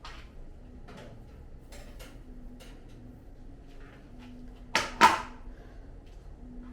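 Light clicks and knocks of things being handled in a kitchen, with two sharp clattering knocks in quick succession about five seconds in.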